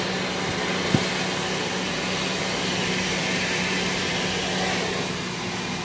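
Pet grooming blow dryer blowing air through its hose and nozzle: a steady rushing hiss.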